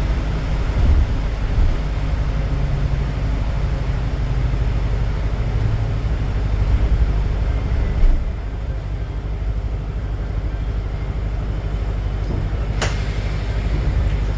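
City bus running on the road, a steady low engine and road rumble heard from inside; it eases slightly about eight seconds in, and a single sharp click or knock sounds near the end.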